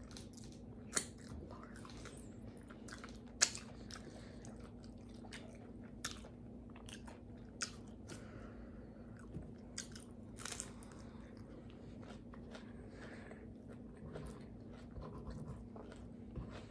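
A person chewing tacos close to the microphone, with wet mouth clicks, smacks and occasional crunches scattered every second or two, the loudest about three seconds in. A faint steady hum runs underneath.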